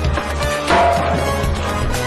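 Background music: an instrumental passage of a Hindi film song with a steady bass and a bright swell about 0.7 s in.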